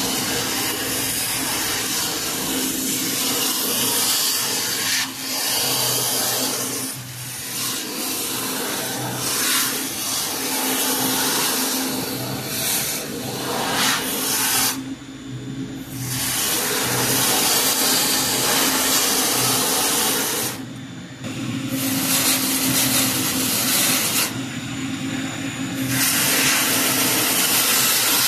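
Sink-polishing machine's abrasive belt running and being pressed against a stainless steel sink surface: a steady hissing grind over a motor hum. The hiss cuts out briefly three times, while the hum carries on.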